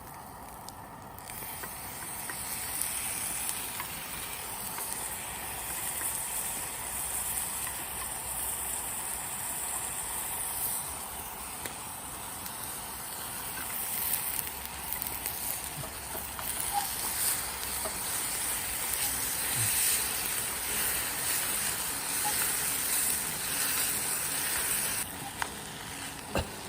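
Wood campfire hissing steadily, with scattered small crackles and pops.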